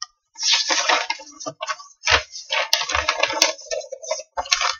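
Sheets of printer paper rustling and crackling as they are handled and shuffled close to the microphone, with a few sharp clicks and taps among them.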